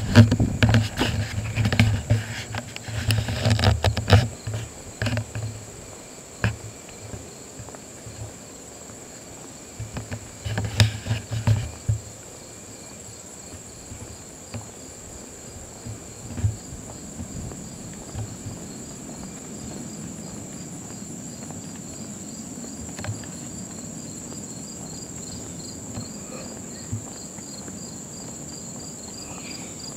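Insects chorusing: a steady high buzz with a fast, evenly pulsing chirp beneath it. In the first few seconds and again around eleven seconds, low rumbling bursts on the bare microphone are louder than the insects.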